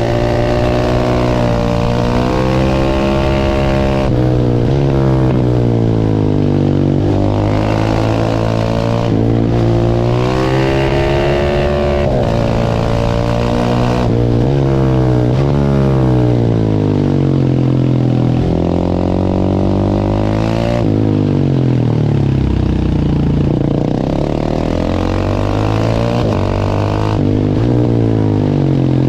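Single-cylinder 690 supermoto engine under hard riding, revving up through the gears and back down. The pitch climbs and falls repeatedly every few seconds, and the engine never pauses.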